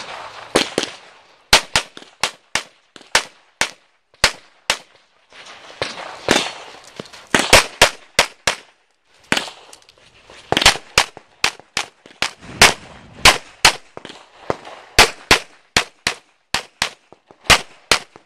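Pistol fire during a practical-shooting stage: dozens of shots in fast strings, many in quick pairs, broken by brief pauses of about a second.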